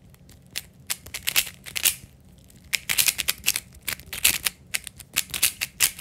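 A speed cube being turned fast during a timed solve: quick plastic clicks and clacks as the layers turn. The clicks are sparse at first and come in rapid runs from about halfway.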